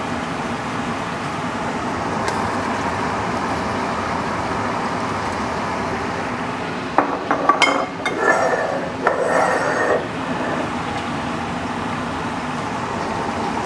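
Glass passata bottles knocking and clinking against the rim of a stainless steel stockpot as they are tipped in to pour, a cluster of sharp clinks about seven to ten seconds in, over a steady background rush.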